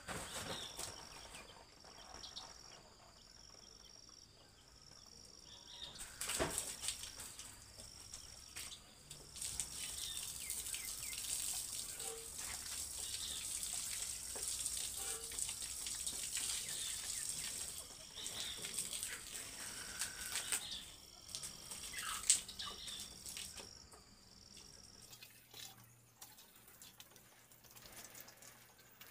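Water spraying from a garden hose and splashing onto concrete and surfaces, a hiss that swells and fades as the spray is moved, with a few sharp knocks.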